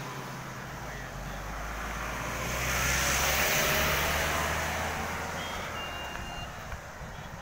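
Highway traffic: a vehicle's tyre hiss on the wet road swells to a peak about halfway through and fades, over the steady low hum of idling lorry engines. A couple of short high electronic beeps come near the end.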